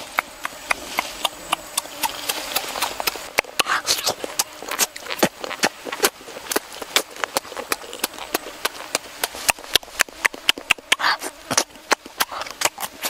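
Close-up wet chewing and lip-smacking, with sharp mouth clicks coming irregularly several times a second as fingerfuls of duck egg are pushed into the mouth.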